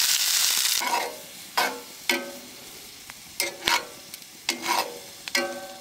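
Pheasant breast pieces sizzling in oil in a cast iron skillet, loud at first and then quieter from about a second in. Over the quieter sizzle, metal tongs clink sharply against the skillet about eight times as the browning pieces are turned and moved, each clink ringing briefly.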